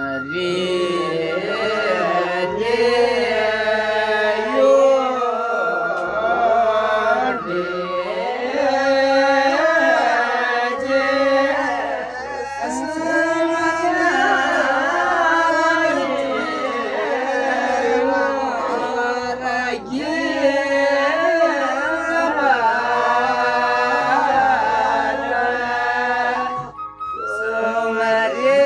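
Several Nyinba men singing a traditional song together in a slow, chant-like melody, with a short break near the end.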